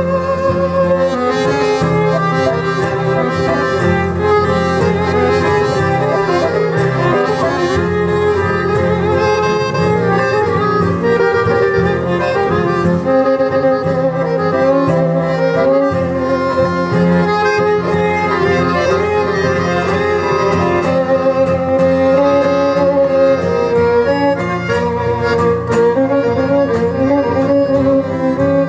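A small folk ensemble playing a waltz, led by a bowed violin melody with a steady lower accompaniment underneath.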